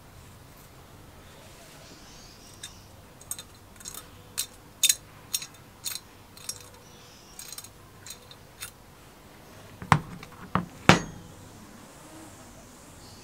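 Light metallic clicks and clinks of small parts being handled as a screw and a coil spring are taken out of a rusty iron burner with a brass valve block, followed by three louder knocks about ten seconds in.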